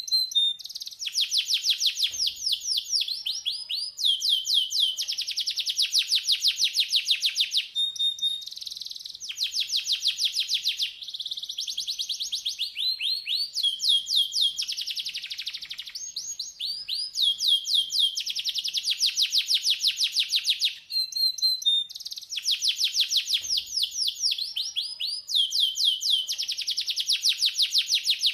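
Domestic canary singing a continuous song tutor (masteran) recording: long runs of fast trills, each a rapid string of repeated high notes, switching to a new trill every second or two. The same sequence of trills comes round again about twenty seconds in.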